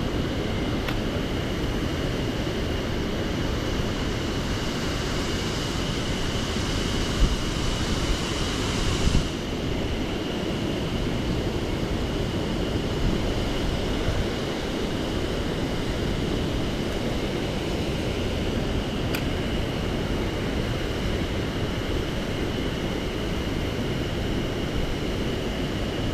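Steady rush of a mountain stream's flowing water, with a thin steady high tone running above it.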